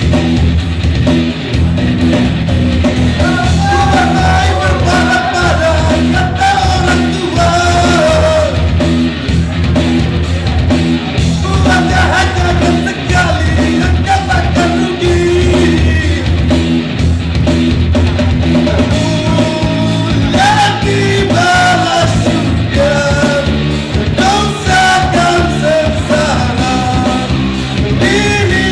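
A man singing a rock song over loud rock band accompaniment, with a dense bass, drums and cymbals under the sung melody.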